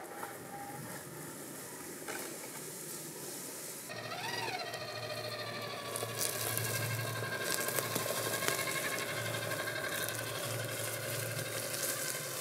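Electric motor and gear whine of a Traxxas TRX-4 scale crawler, driven by a Hobbywing QuicRun Fusion 1800KV brushless crawler motor, as it crawls over rough ground. The pitch rises and falls briefly about four seconds in, then the whine runs steadier and a little louder.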